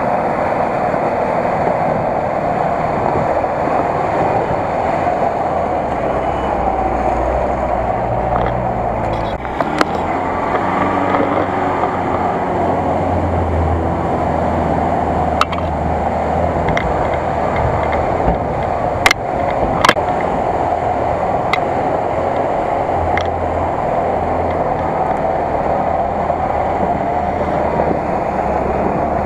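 GAZ-66 army truck's engine running under load as it drives through deep mud and water, under a steady rushing hiss. A few sharp clicks come about two-thirds of the way through.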